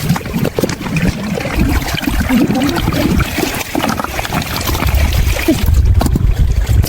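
Water trickling and splashing, irregular and noisy, with a heavy low rumble building in the second half.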